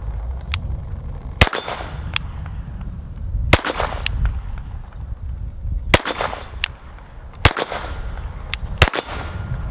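Glock 44 .22 LR pistol fired five times in slow aimed fire, the shots about one and a half to two and a half seconds apart, each with a short echo trailing off.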